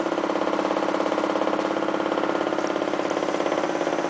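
Desk stapler clattering in a rapid, steady rattle, set vibrating by a running electric fan.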